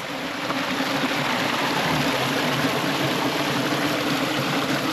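Mountain stream water rushing steadily, with a steady low hum beneath it.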